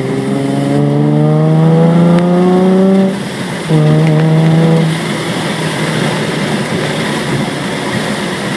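Supercharged 2003 Nissan 350Z's V6 accelerating hard, its note rising, dropping briefly at a gear change about three seconds in and rising again. About five seconds in it eases off to a steady cruise with road noise, heard from inside the car.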